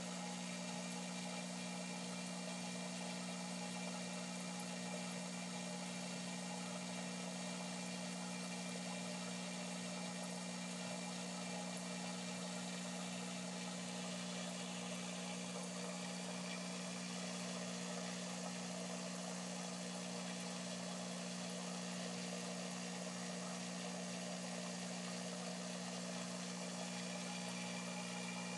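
Water pump of a turtle tank running: a steady low hum over an even hiss, unchanging throughout.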